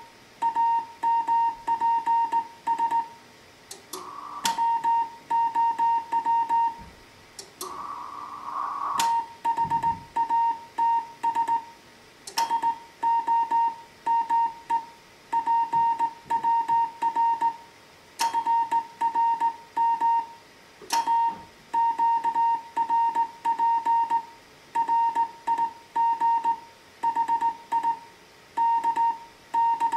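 Slow Morse code from a Heathkit HW-101 transceiver: a single steady tone keyed on and off in dots and dashes. A few sharp clicks and two short bursts of hiss cut in.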